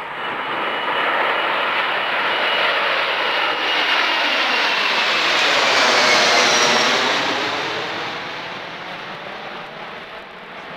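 Boeing 747-400's four turbofan engines at takeoff power as the airliner climbs out and passes overhead: a loud jet roar that builds to a peak about six seconds in, then fades as it moves away, with a high engine whine that falls in pitch as it goes by.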